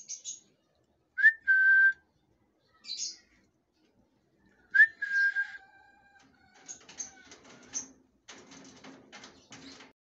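Cockatiel whistling: two clear whistles, each a quick upward chirp into a held flat note, with short high chirps between them. A softer, scratchy chatter fills the last few seconds.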